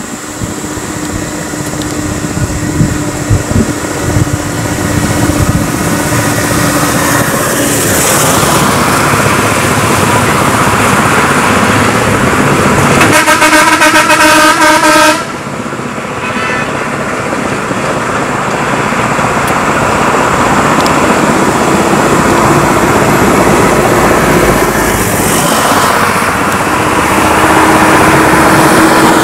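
Road traffic passing, engines and tyres running steadily, with a vehicle horn sounding for about two seconds near the middle and cutting off suddenly.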